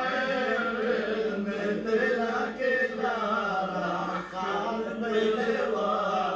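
Male chanting in the melodic style of Lebanese zajal poetry: a long sung line on drawn-out, wavering vowels, held almost without a break.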